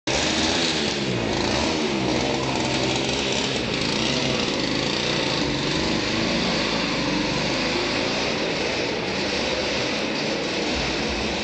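Simson Schwalbe moped's small single-cylinder two-stroke engine running loud and steady, its pitch rising and falling a little.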